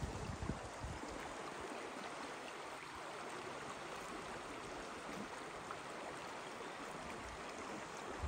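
Shallow mountain river, the Valser Rhein, rushing steadily over rocks, with a few low thumps in the first second.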